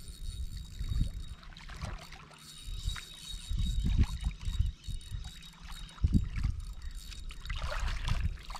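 Shallow river water sloshing around the feet of a wading angler, with irregular low rumbles and a louder splash near the end.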